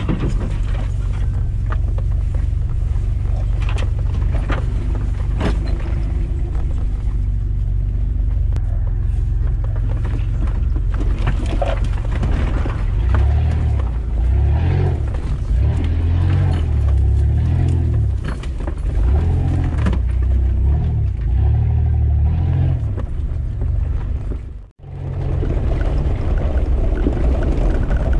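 4x4 SUV engine running under load on a rough dirt track: a steady low drone that swells into heavier pulsing rumble through the middle, with knocks and rattles from the body and suspension over the ground. The sound drops out for a moment near the end.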